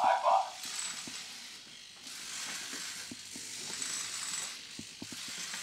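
Small hobby servos in a 3D-printed four-servo walking robot whirring in repeated bursts about a second long, their gears buzzing with a thin high whine, with light clicks between. A brief loud blip right at the start.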